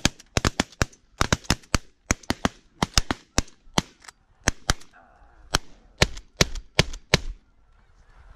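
Volley of shotgun fire from several hunters firing together: about two dozen rapid, overlapping shots in uneven clusters, stopping about seven seconds in.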